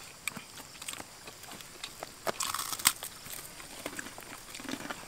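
People eating by hand: crunchy chewing with small clicks and rustles of fingers picking at food and leaves. A louder crackle, ending in one sharp click, comes about halfway through.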